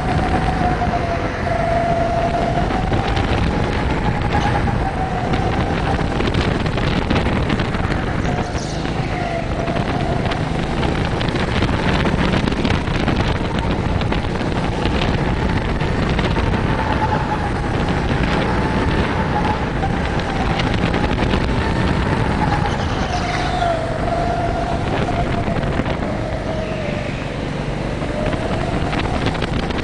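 Rental go-kart heard from the driver's seat running at speed around a track, a steady rush of noise with the motor's whine slowly rising and falling as the kart accelerates and brakes through the corners.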